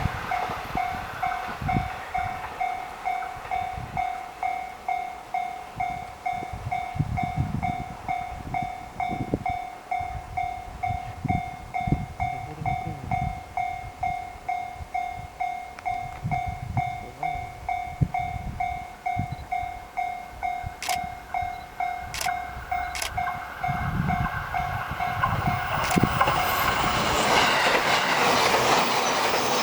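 Japanese level-crossing warning bell ringing about twice a second, with intermittent low rumble from JR East E531-series trains. The bell stops near the end as a train's running noise swells and grows loud.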